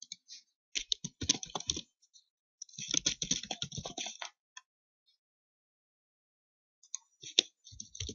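Typing on a computer keyboard: a run of keystrokes about a second in, a longer run from about three to four seconds in, and a shorter run near the end.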